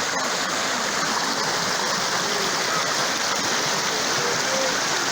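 Floodwater rushing steadily across a road, a dense, even sound of flowing water.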